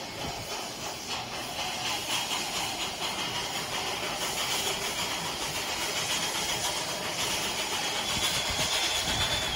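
Steady steam hiss from Durango & Silverton K-28 steam locomotive No. 473 as it is turned on the turntable, with a thin, high-pitched whine that grows stronger in the last couple of seconds.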